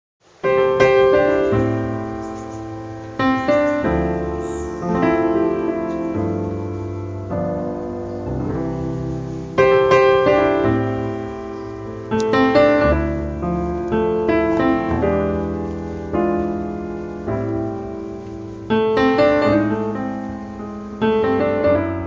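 Slow, gentle piano music: chords struck one after another, each left to ring and fade, beginning about half a second in.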